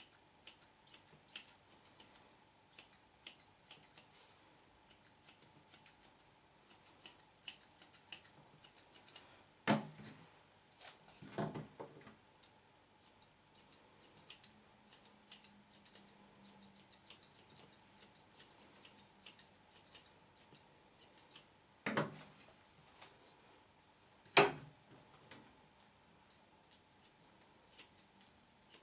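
Grooming shears snipping a poodle's coat: runs of quick, crisp little cuts, several a second, broken by short pauses. A handful of louder knocks stand out among the snips.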